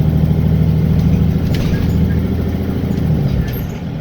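Diesel engine of a Wright Gemini 2 double-decker bus on a VDL DB300 chassis pulling steadily under load, heard from inside the bus, then easing off about three-quarters of the way through. This is the bus the uploader notes makes an unusual ticking noise when accelerating.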